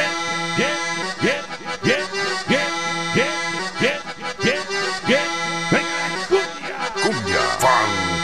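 Cumbia music with accordion holding chords under a steady beat. A rising swoop sound repeats about every two-thirds of a second, and a sweeping effect comes in near the end.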